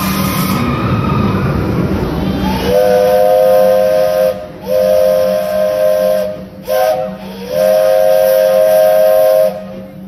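Steam hissing from a Walt Disney World Railroad steam locomotive, then its chime whistle sounding a chord in four blasts: long, long, short, long, the grade-crossing signal.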